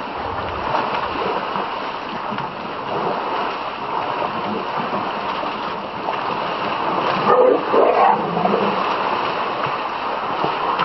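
A herd of elephants splashing and wading in a muddy waterhole: a steady wash of churning water with splashes, louder for a moment about seven seconds in.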